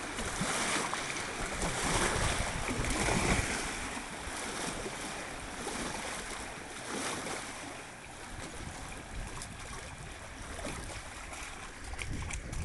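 Waves from a passing boat's wake washing in, rising and falling in surges, with wind noise on the microphone.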